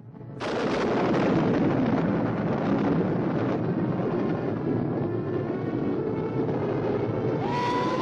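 Cartoon soundtrack that cuts in abruptly: a loud, dense wash of noise with music running through it, steady throughout. Near the end a short rising tone slides up and holds.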